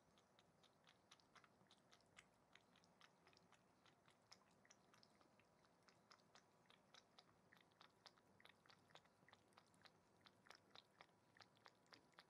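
Domestic cat lapping water from a shallow dish: faint, quick wet clicks at about four a second.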